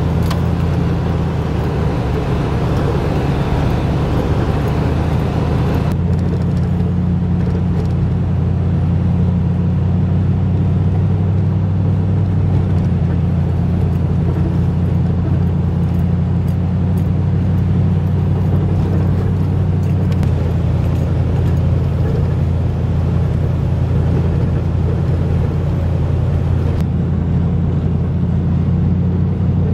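Steady drone of a car or truck heard from inside the cab while driving over snow and ice: a constant engine hum with road noise. The hum shifts slightly about six seconds and twenty seconds in.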